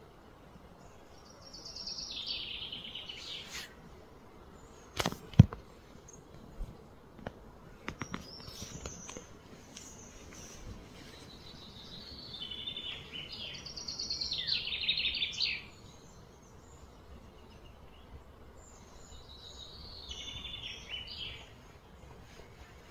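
A bird singing three phrases of rapid high notes, each sliding down in pitch, over steady outdoor background noise. Around the middle come a few sharp knocks and clanks, the loudest about five seconds in, from a hanging chained enrichment feeder being handled by a gorilla.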